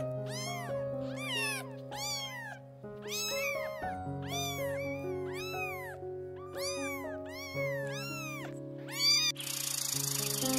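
A domestic cat meowing again and again, about two short rising-and-falling meows a second, over background music with held notes. Near the end the meows stop and a steady hiss takes over.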